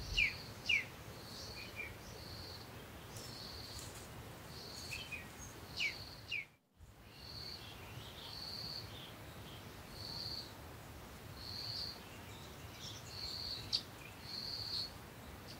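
Birds chirping: a run of quick downward-sweeping chirps in the first second, then short high notes repeated about once a second, over a faint low hum, with a brief cut-out to silence in the middle.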